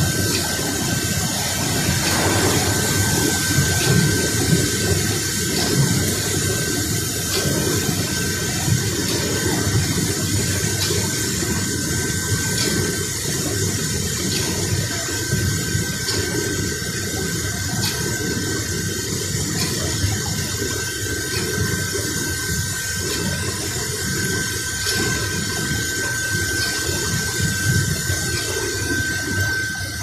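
Industrial bubble-type vegetable washing machine running: water in the tank churns and splashes steadily as the air-bubble generator and spray nozzles agitate the seaweed, with a thin, steady high whine from the machine over it.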